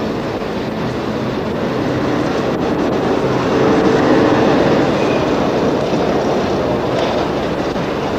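A loud, steady rumbling noise that swells about four seconds in and then eases off.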